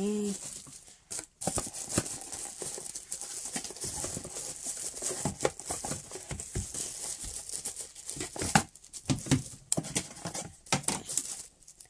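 Plastic bag crinkling and rustling as a cardboard box is handled and opened, with scattered small clicks and taps.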